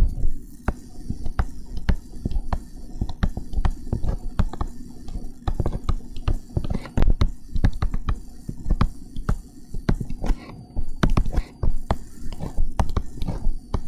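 Stylus tapping and scratching on a touchscreen while writing by hand: a busy, irregular run of sharp clicks and taps with dull knocks beneath.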